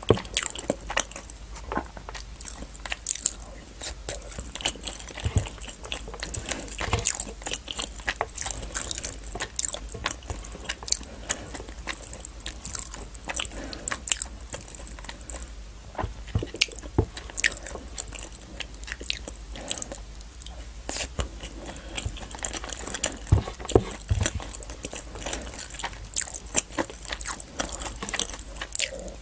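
Close-miked chewing and mouth sounds of a person eating biryani rice and naan dipped in butter chicken curry, with many sharp, short wet clicks and smacks.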